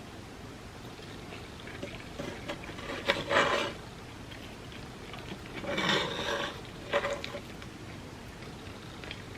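Close-miked eating sounds: two short bursts of biting and chewing about three seconds apart, the second followed by a sharp click, over a steady hiss.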